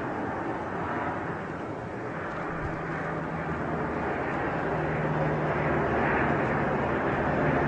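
Mi-24 attack helicopter's twin turbine engines and rotor running steadily as it hovers low, heard from a distance. The sound grows gradually louder, with a steady low hum coming up about halfway through.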